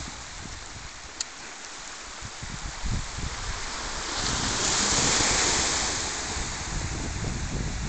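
Small sea waves washing onto a pebble beach, one breaking and rushing over the stones to its loudest about halfway through, then easing off. Wind buffets the microphone throughout.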